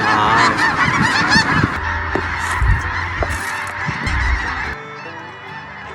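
A large flock of geese honking, a dense chorus of many overlapping calls that thins out after about two seconds. Music takes over near the end.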